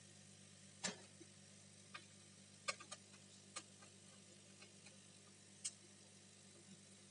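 Scattered light clicks and taps, about six in all, of a small screwdriver and fingers on a laptop's motherboard and plastic chassis while screws are sought and removed, over a faint steady hum.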